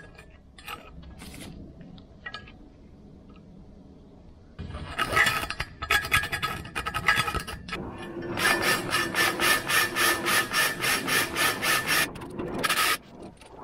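Corrosion being scraped out of an alloy wheel's valve-stem hole: faint scratching, then a few seconds in a rough metal scraping. Later a cordless drill runs against the hole in rapid strokes, about four or five a second.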